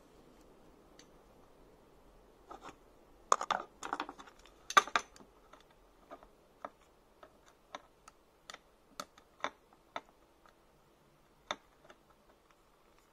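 Clicking and scraping of nested square metal tubes and a small screwdriver being worked by hand while a slip pad is fitted into the telescoping shaft: a cluster of louder clacks and scrapes about three to five seconds in, then scattered light clicks.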